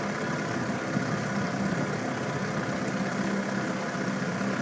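Tiller-steered outboard motor running steadily with the boat under way, an even drone.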